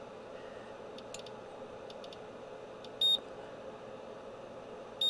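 Two short electronic beeps about two seconds apart from a Rigol digital oscilloscope's front-panel beeper, warning that the volts-per-division setting has reached its limit, over a faint steady hum.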